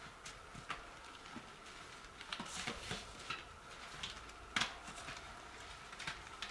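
Faint, irregular clicks and rustles from a tent being pitched, its fabric and poles being handled, with one sharper click about four and a half seconds in.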